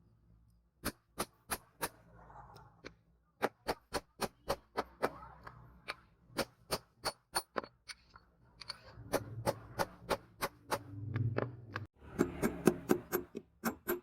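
Hand hammer striking steel on an anvil, about three ringing blows a second, in runs with short pauses, faster near the end.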